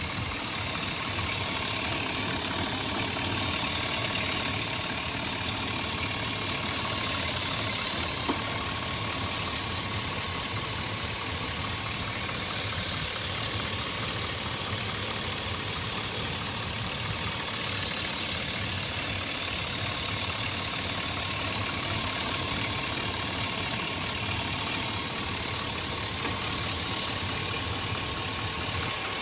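2004 Chevy Silverado engine idling steadily under a strong, even hiss that the owner puts down to a vacuum leak. A couple of brief clicks sound over the idle.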